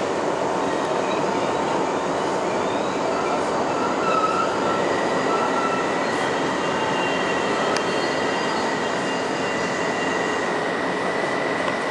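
R62A subway car running through a tunnel, heard from inside the car: a steady rush of wheel and rail noise with high-pitched wheel squeal tones that come and go, and a steady high squeal that sets in about five seconds in.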